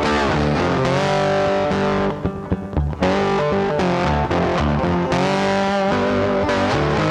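Guitar-led background music, thinning out for about a second roughly two seconds in before picking up again.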